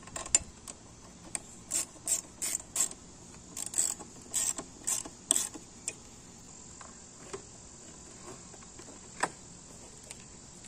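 Socket ratchet clicking in short bursts on the bolt of a mower blade as the bolt is tightened; the clicking stops about six seconds in, with one more click a few seconds later.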